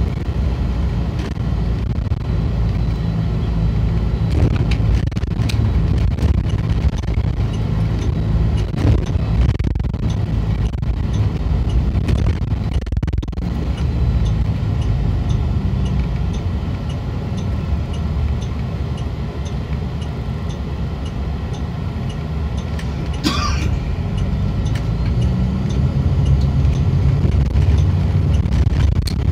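Diesel engine of an MCI D4505 motorcoach heard from inside the passenger cabin, running under way, its pitch rising near the end as the coach speeds up. A faint ticking comes about twice a second.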